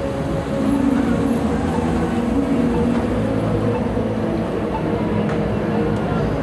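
Steady din of a busy city street, mostly traffic noise with a faint low hum through it.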